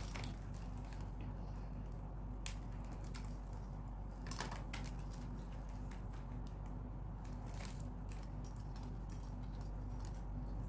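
Yellow plastic basket-weaving wire rustling and scraping in the hands as it is pulled through and tightened into knots, with a few short crackles, over a steady low hum.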